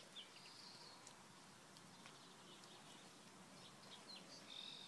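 Faint birdsong: short high chirps and trills, a few at the start and a cluster toward the end, over quiet outdoor background noise.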